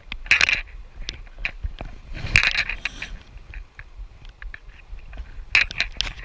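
Fly reel's click-and-pawl ratchet clicking in three short bursts, with scattered single ticks between them.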